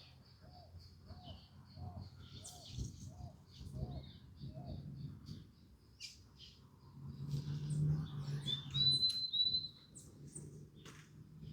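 Several birds calling together. A series of about nine short, low notes repeats roughly twice a second for the first five seconds, over scattered high chirps. Near the end come two or three clear, high rising whistles, with a low hum beneath them.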